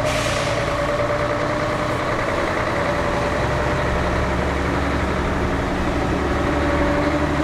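A heavy truck's diesel engine running low and steady as the truck creeps forward at low speed, with a held engine tone over a low rumble that grows stronger about halfway through.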